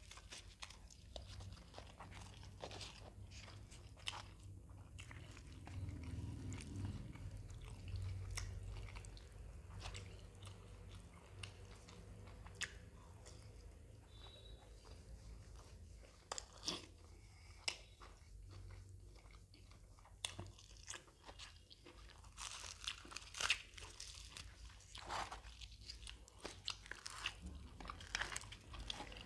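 Close-miked eating: crisp bites and chewing of deep-fried puri (luchi) with mutton tripe curry, a run of scattered crunches and wet mouth clicks, thickest and loudest about 23 seconds in.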